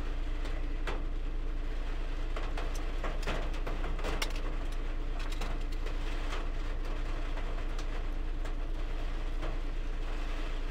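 Steady low rumble and hum with scattered light clicks and knocks.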